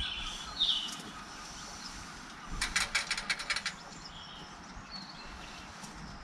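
A short high chirp just before a second in, then a quick rattle of about ten sharp clicks lasting about a second, followed by a few faint bird chirps.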